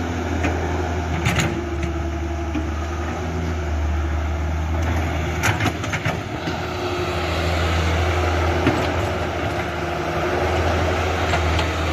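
Radio-controlled long-arm excavator running with a steady low, engine-like hum. Sharp clicks come about a second in and again around five and a half to six seconds in.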